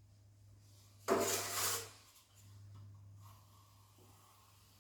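Drywall knife scraping joint compound across the wall in one short stroke about a second in, over a low steady hum.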